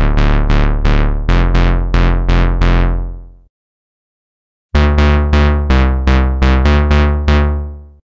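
Roland Juno-60 software synthesizer playing a future bass preset: a phrase of short, punchy low bass notes, about three a second, each starting bright and quickly darkening, stepping in pitch. The phrase stops a little after three seconds, and a second similar phrase starts about a second later.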